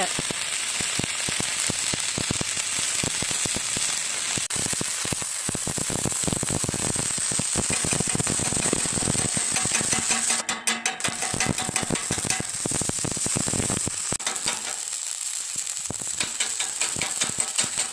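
Stick (arc) welding with a size 10 electrode: the arc gives a steady crackling sizzle, stuttering briefly about ten seconds in.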